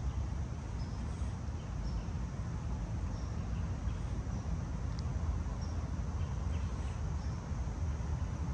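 Outdoor woodland ambience: a steady low rumble, with small, brief high bird chirps every second or so.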